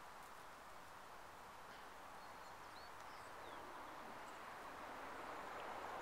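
Faint, steady background hiss of open-air ambience, growing slightly louder toward the end, with a few faint, high bird chirps about halfway through.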